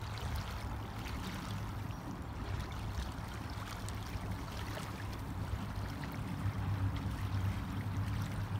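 River water flowing, a steady rush with a low rumble underneath.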